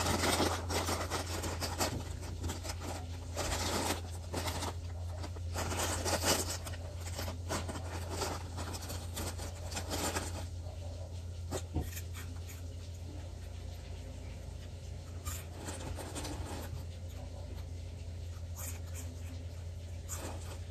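Irregular rubbing and scuffing noises, heavier in the first half and softer after about ten seconds, over a steady low hum.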